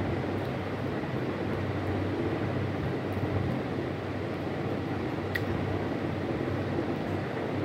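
Wall-mounted air conditioner running with a steady low hum and rush of air, with one faint click about five seconds in.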